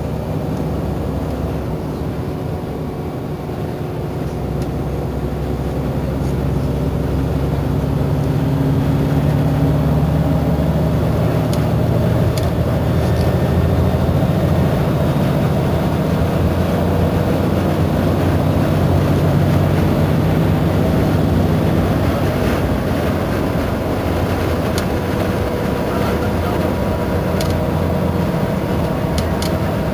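Iveco Crossway bus standing at a stop with its rear-mounted engine idling, a steady low hum that swells slightly a few seconds in.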